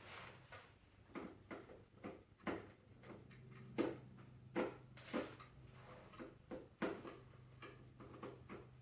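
Irregular metallic clicks and knocks of an 8 mm socket tool working a small bolt loose in the engine bay, over a steady low hum.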